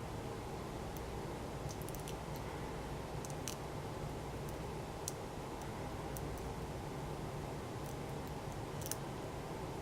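Scattered small metallic clicks and taps from handling a lock and a shim, over a steady low hum.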